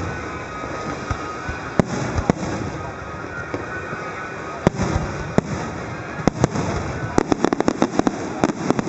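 Aerial fireworks shells bursting overhead: single sharp bangs every second or so, then a rapid string of crackling bangs near the end.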